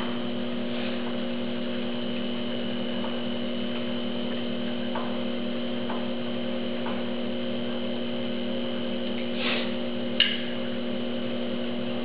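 Atlas 12 by 36 metal lathe running while it cuts a thread on a long chrome steel shaft: a steady motor and gear hum with faint ticks about a second apart. Near the end comes a brief scrape, then a sharp click.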